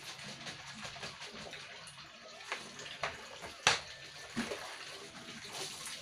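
Water sloshing and splashing as empty plastic soda bottles are hand-washed in a basin, with water poured into them from a plastic dipper. A few sharp knocks of the plastic bottles sound in the middle, the loudest a little past halfway.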